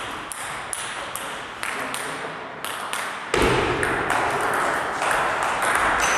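Table tennis rally: the ball clicking sharply off the bats and the table in quick succession, a few tenths of a second apart. A louder steady hiss of background noise joins about three and a half seconds in.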